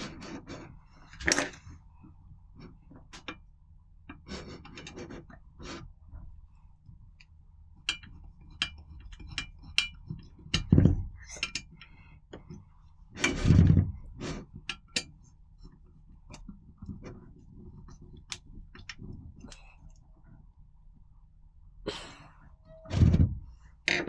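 Metal parts being handled and set down: a scatter of sharp clicks and taps, with heavier thunks about eleven and thirteen and a half seconds in and again near the end.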